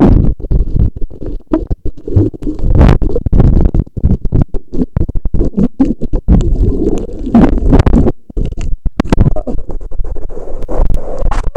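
Churning surf and bubbles around a rock, heard by a camera dipping in and out of the water: a loud, muffled rumbling and sloshing with irregular knocks, briefly cutting out a few times.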